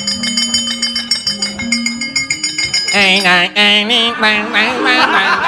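Javanese gamelan playing: metallophones ring in sustained tones with jingling percussion, and about three seconds in a voice joins, singing with a wavering pitch.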